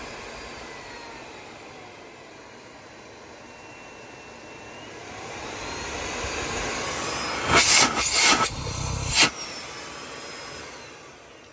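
Miele Complete C3 Cat & Dog PowerLine vacuum cleaner running, a steady rushing with a faint whine that drifts in pitch and grows louder partway through. About three loud rushing bursts come between two thirds and four fifths of the way in, then the motor winds down near the end.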